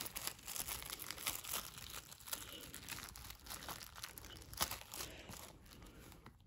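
Clear cellophane shrink-wrap being picked at and torn off a plastic Blu-ray case by hand: irregular crinkling and crackling, with a sharper crackle about four and a half seconds in.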